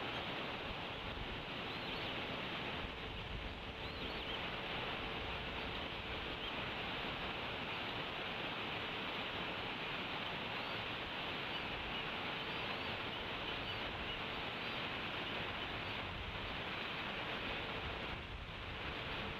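Steady outdoor background hiss on a nest-camera microphone, with a faint hum at times. Faint high peeps come now and then from a bald eagle chick softly begging to be fed.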